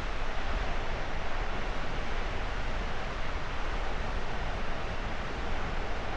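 Steady roar of Takakkaw Falls and its wind-driven spray, with wind buffeting the microphone.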